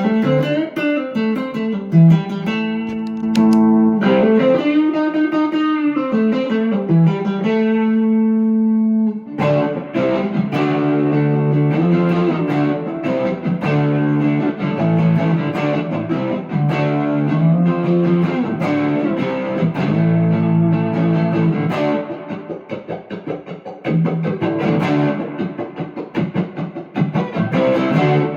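Electric guitar played through an amp's overdrive channel: held notes with string bends for the first nine seconds or so, then a busier run of picked notes, turning to short, choppy notes about two-thirds of the way in.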